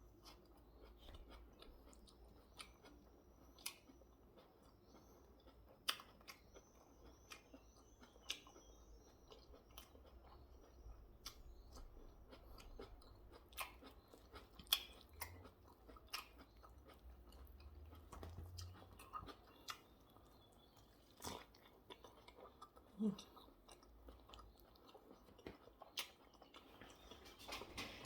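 Faint, close-up chewing of a mouthful of food, with scattered sharp wet clicks and small crunches from the mouth.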